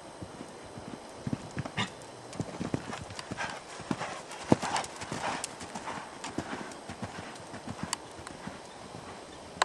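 Hoofbeats of a bay Dutch warmblood mare moving under a rider on arena sand: an uneven run of dull thuds, the loudest about four and a half seconds in.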